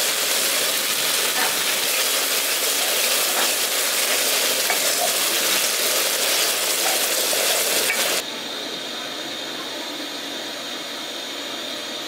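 Spice paste with sour curd sizzling in a pan as it is stirred. About eight seconds in, the sizzle drops suddenly to a quieter steady hiss.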